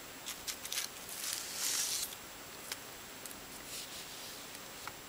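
Small plastic clicks and rustling as clip-on plastic handrail protectors are pulled off a model diesel locomotive. The busiest rustle comes about a second in, with a few single clicks later.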